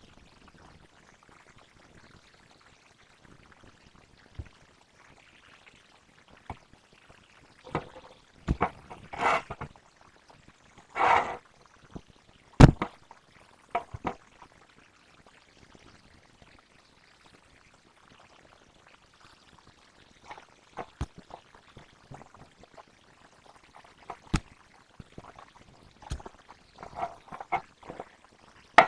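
Homemade slime being handled: irregular short wet noises and sharp clicks, the loudest cluster a little before halfway.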